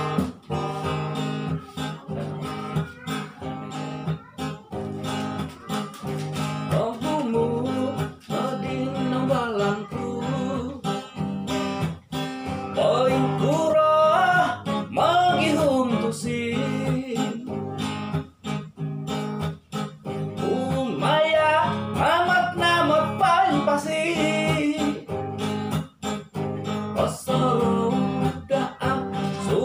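Acoustic guitar strummed in a steady rhythm, with a man's voice singing along; the voice comes in a few seconds in and is strongest in two phrases in the middle and later part.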